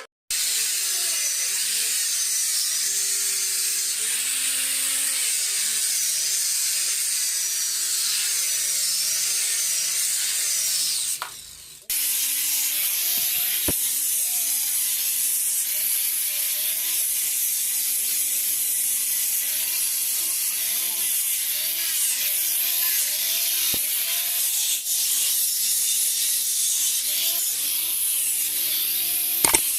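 Power tool working wood, a steady hissing grind that breaks off briefly about twelve seconds in before starting again.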